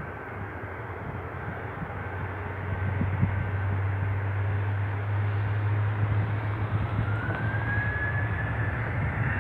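Ryanair jet airliner's engines at takeoff power: a steady low rumble that grows louder over the first few seconds, with a thin rising whine coming in about seven seconds in.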